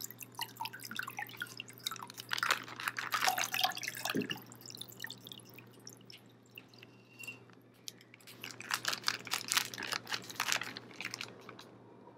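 Water dripping and trickling from a squeezed plastic bag through a mesh strainer into a glass measuring cup, the strainer holding back the gel. It comes in two busier spells, about two seconds in and again about eight seconds in, with sparser drips between.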